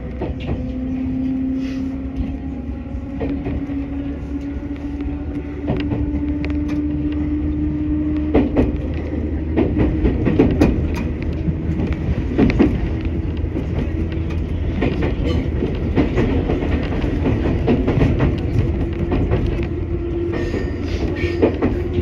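Electric train running, heard from the driver's cab: a steady motor hum creeps up in pitch over the first several seconds as it gathers speed, then holds. From about a third of the way in, the wheels clack sharply and irregularly over points and rail joints in the station yard.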